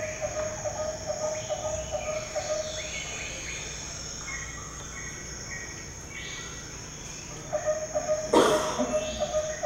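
Jungle ambience of trilling insects and chirping birds over a steady high insect whine, with the fast low trill dropping out for a few seconds in the middle and coming back. A single sharp crack, the loudest sound, about eight seconds in.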